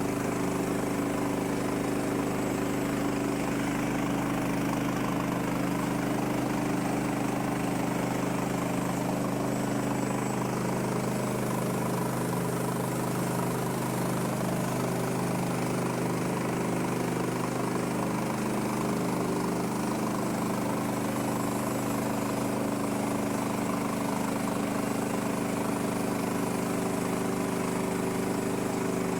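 Woodland Mills HM130 Max portable band sawmill's gas engine running steadily under a cut as the band blade goes through a log.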